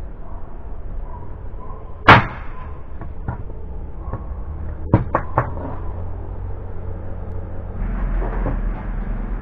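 A corded electric nail gun fires once with a single sharp snap about two seconds in, followed by a few lighter clicks and knocks, three of them in quick succession midway. Near the end a low rumbling noise comes in.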